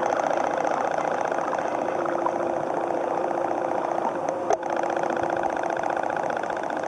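Steady mechanical buzzing hum from a small motor, with a lower steady tone joining about two seconds in and one short knock about four and a half seconds in.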